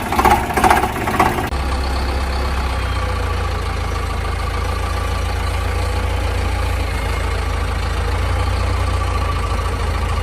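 An engine-like running sound: about a second and a half of clattering, then a steady idling hum that stays even.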